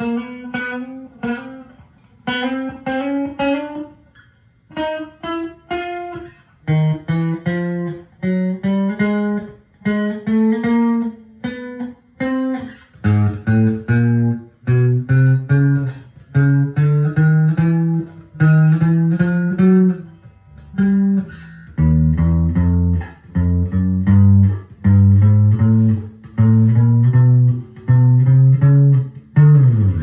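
Fender electric bass played fingerstyle: short phrases of plucked notes with brief pauses between them, in a higher register at first and then on lower, heavier notes from about halfway through. Just before the end a note slides quickly down in pitch.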